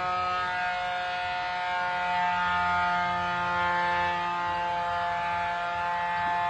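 Fish-calling loudspeaker playing a steady droning tone with many overtones, used to draw fish to the bait.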